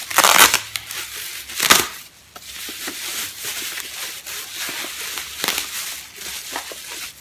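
Packaging being crumpled and rustled by hand as a parcel is unpacked: two loud crunches in the first two seconds, then lighter, steady rustling with small clicks.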